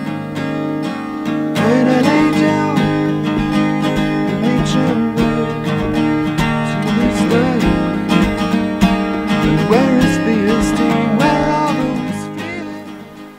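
Acoustic guitar with a capo being played, with a voice singing over it from about two seconds in. The music fades out near the end.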